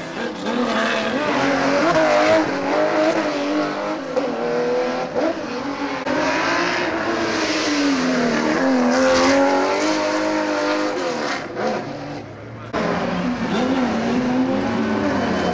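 Porsche 911 rally car's air-cooled flat-six revving hard through a tight coned section, its pitch rising and falling with throttle and gear changes. Near the end, after a sudden cut, a Lancia 037 rally car's engine takes over.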